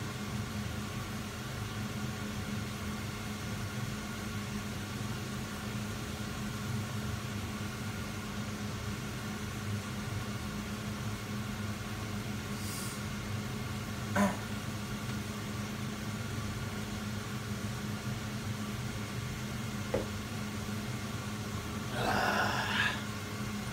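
Steady low machine hum from a kitchen appliance, with a faint click about halfway through and another a little later. Near the end comes a short voiced sound from a person, about a second long, like a yawn.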